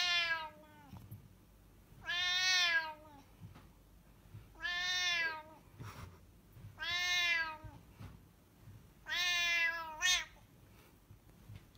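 Domestic colorpoint cat meowing as a hand pats its head: five drawn-out meows about two seconds apart, each dropping in pitch as it ends.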